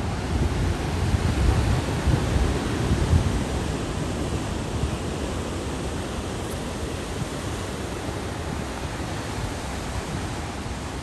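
Storm-swell surf breaking and washing in below, a steady rush, with wind buffeting the microphone in gusts that ease after about four seconds.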